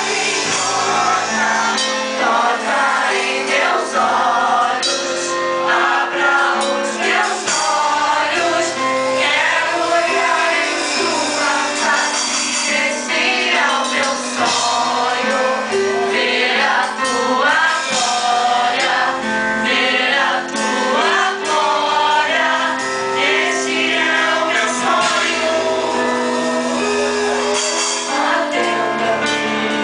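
Live Christian worship song: several voices singing together on microphones, accompanied by a band with electric guitars and drums.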